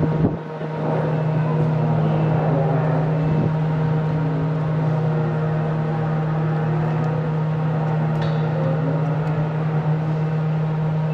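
Steady engine drone: one strong low hum with fainter steady tones above it, unchanging throughout, typical of ship diesel machinery.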